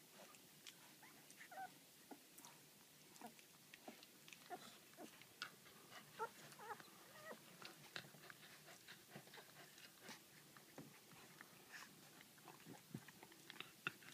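Faint wet clicks and smacking of working cocker spaniel puppies, 18 days old, suckling at their mother, with a few small squeaks scattered among them.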